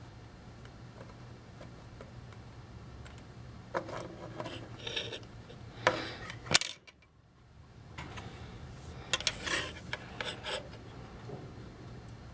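Small metal clinks, taps and rubbing of tools and parts handled during hand soldering, in two bursts, with two sharp clicks the loudest near the middle.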